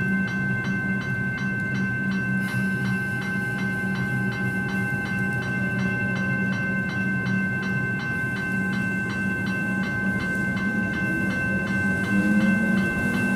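General Signals electronic level-crossing bells ringing a rapid, repeating ding, about four strokes a second. In the last few seconds an electric suburban train approaches, its motor whine rising in pitch.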